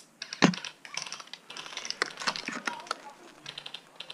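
Irregular sharp clicks and rattles, with one loud knock about half a second in.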